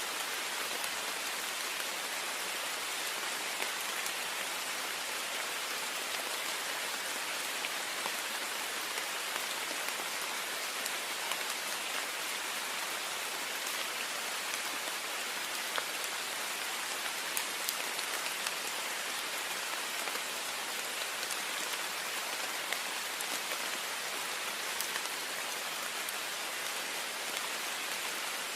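Heavy rain beating steadily on a window pane, a dense hiss of spray with many small drop taps.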